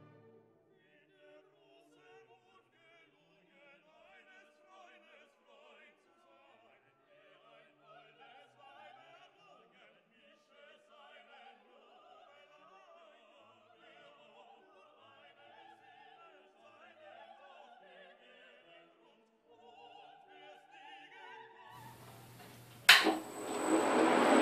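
Quiet background music, opera singing with orchestra. Near the end a sharp click, then a milling machine starts up and runs with a high whine, getting steadily louder.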